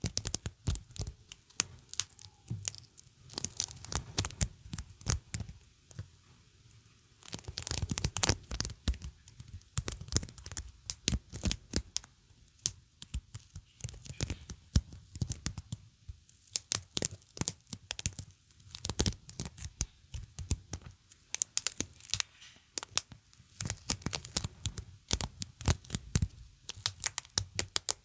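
Sticky surface being pressed and peeled away again and again, close up: a rapid, irregular run of crackling pops and clicks, with a short lull a little over a fifth of the way in.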